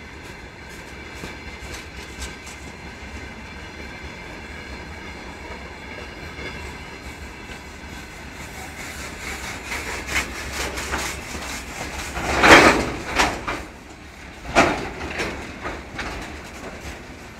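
Freight train of open gondola wagons rolling past, its wheels clattering over the rail joints in a steady run of clicks that grows busier about halfway through. A few loud, short bursts of metallic clanging and screeching from the wheels and wagons come about three-quarters of the way through.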